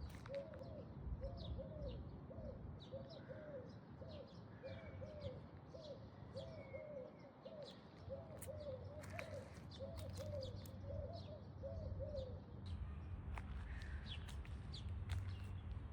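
A bird calling over and over in short, low, arched notes, about two a second, that stop about twelve seconds in. Fainter high chirps from other birds and a few scattered clicks are also heard.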